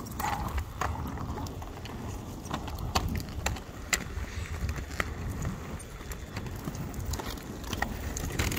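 Roller skate wheels rolling over rough pavement: a steady low rumble with scattered sharp clicks.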